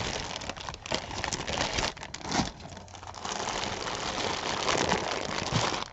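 Crinkling, rustling handling noise as costume jewelry is sorted through by hand, with a few light clicks of beads and pieces knocking together.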